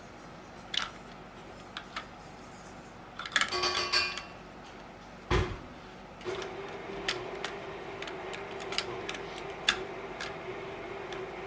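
Plastic toy train set pieces clicking and knocking as they are handled, with one louder knock about five seconds in. From about six seconds a steady hum starts up and carries on.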